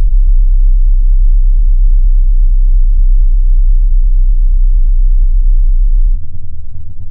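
Electronic music: a loud, deep sine-wave bass tone under a rough, rumbling low noise. About six seconds in, the deep tone cuts off abruptly, leaving a quieter rumble.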